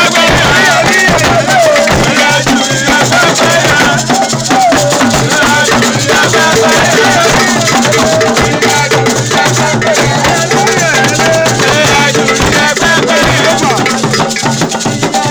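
Ifa ceremonial music: group singing over hand-drum beats and shaken rattles, dense and loud.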